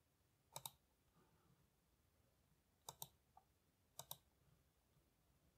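Faint clicks of a computer mouse in near silence: three quick double clicks, each a press and release, the first near the start, the second about three seconds in and the third a second later.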